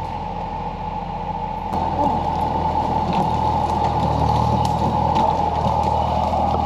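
Mahindra tractor's diesel engine running, louder and working harder from about two seconds in, with scattered small cracks and clicks.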